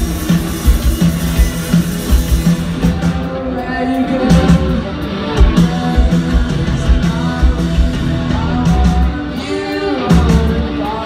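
Live rock band playing through a big stage sound system: electric guitars, bass and drums keep a steady driving beat while a woman sings.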